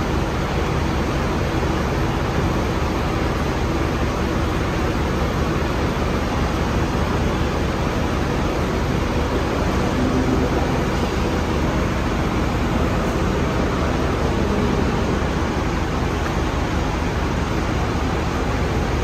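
Alexander Dennis Enviro 500 double-decker bus standing with its engine idling: a steady, even drone.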